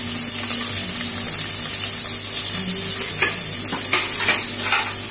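Sliced onion, garlic and curry leaves sizzling steadily in hot oil in an aluminium pressure cooker, with a few short scrapes in the second half.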